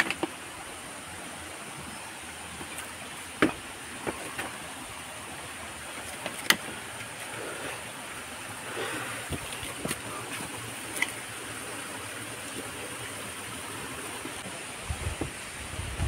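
Water of a stream running steadily, with a few sharp clicks or knocks now and then.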